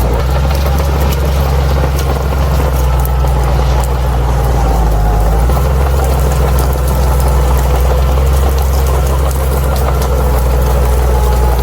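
Crawler bulldozer's diesel engine running steadily under load, a deep even drone with a faint wavering whine above it and scattered light clicks.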